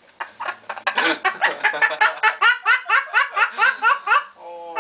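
Long run of rapid, evenly spaced laughter, about five 'ha's a second, each falling in pitch. Near the end it gives way to one held steady note.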